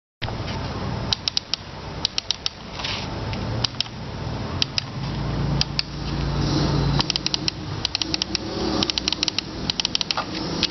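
Computer mouse microswitches being clicked: sharp, short clicks, some single and some in quick runs of three to five, over a steady background hiss.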